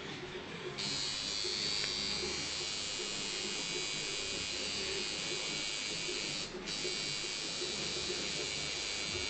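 Electric tattoo machine buzzing steadily as it works on skin. It switches on about a second in and cuts out for a moment about two-thirds of the way through before running again.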